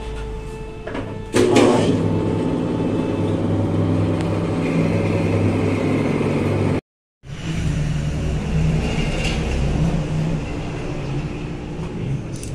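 Belt-driven metal lathe switched on about a second and a half in, then running steadily with a low motor hum as its chuck turns a steel shaft. The sound drops out completely for a moment about seven seconds in.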